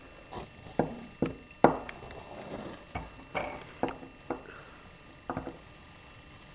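A series of about ten sharp, irregular knocks and clatters over some five seconds, the loudest about a second and a half in, stopping near the end.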